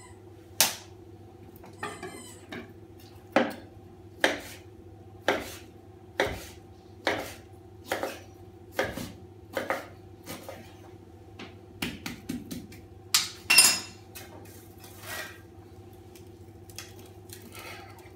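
A large kitchen knife cutting through a cooked joint of meat and knocking on a wooden chopping board, about one sharp knock a second, then a few scattered, louder clatters, over a steady low hum.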